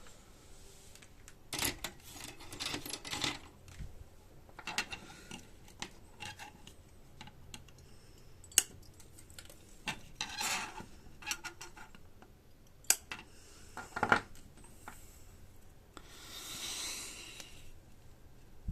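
Scattered sharp clicks, light metallic clinks and rustling from small hand tools and a circuit board being handled while components are soldered in, with a soft hiss near the end.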